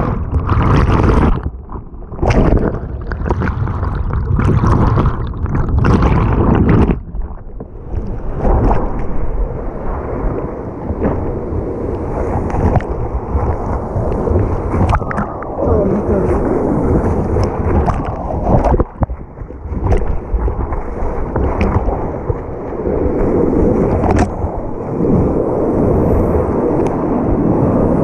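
Whitewater of a river in high water rushing and churning. For the first several seconds it comes in muffled surges with short breaks, as if heard from under the water. From about seven seconds in it settles into a steady loud rush of rapids, with a few sharp knocks.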